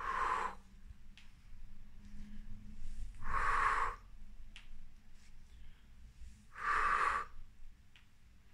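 A man's heavy exhalations while doing squats holding a baby: three short, forceful puffs of breath about three seconds apart, one with each repetition.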